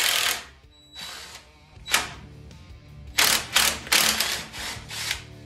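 Hand socket ratchet clicking in several short bursts, bunched in the second half, as a loosened suspension bolt is run out.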